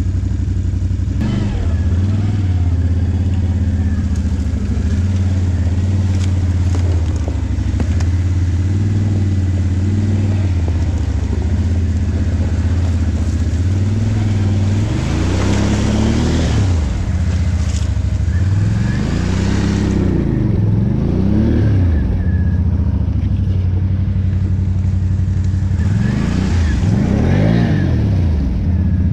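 Can-Am Outlander ATV engine running at low revs, then revved hard in repeated rising and falling surges from about halfway through as the quad churns through icy water and mud, with splashing and slush noise at the peaks of the revs.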